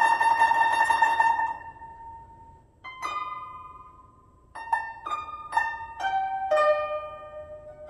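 Two guzheng (Chinese zithers) playing a duet: a rapid tremolo on one note fades out about a second and a half in, then after a pause a single plucked note, and later a run of plucked notes stepping down in pitch, each left ringing.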